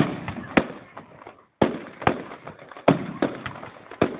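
Aerial firework shells bursting in quick succession: about seven sharp bangs in four seconds, the first and loudest right at the start, each followed by a fading rumble and crackle.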